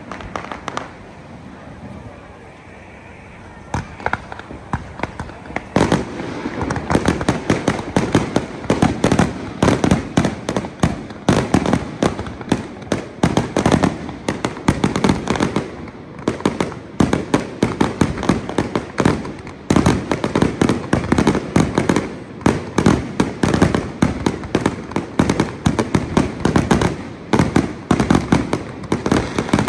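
Fireworks display: a few scattered bangs at first, then from about six seconds in a dense, rapid barrage of bursting shells that keeps on.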